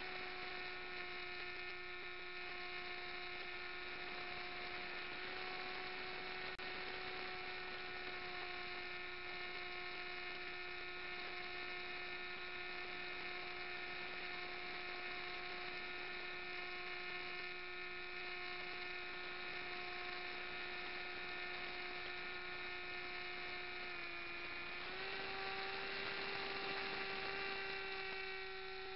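Steady whine of the model flying wing's electric motor and propeller, picked up by the onboard camera. Near the end the pitch dips briefly, then rises and holds higher as the throttle changes.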